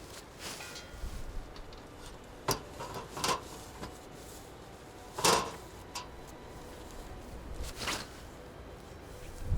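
A few scattered knocks and clatters of things being handled, with the loudest about five seconds in.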